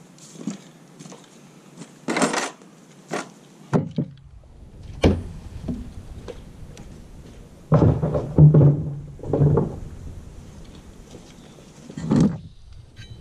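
Scattered knocks and clunks of tools and metal hardware being handled and set down, with a busier run of clunks about eight to ten seconds in and a last one near the end.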